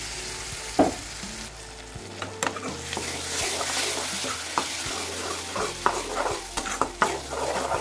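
Ground tomato sizzling in hot oil with fried shallots, garlic and spices in a kadai, stirred with a steel ladle that scrapes and clicks against the pan. The sizzle gets louder about three seconds in.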